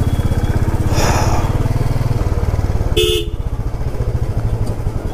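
Motorcycle engine running at low speed with a fast, even beat in slow, crowded traffic. A vehicle horn honks once, briefly, about three seconds in.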